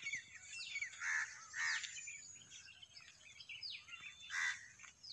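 Dawn chorus of several birds: quick downward-sliding whistles and chirps, with louder, harsher calls about a second in, again just after, and near four and a half seconds.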